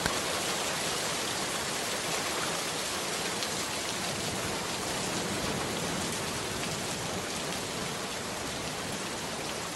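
Steady, even hiss of noise, like rain or rushing air, with no clear separate events.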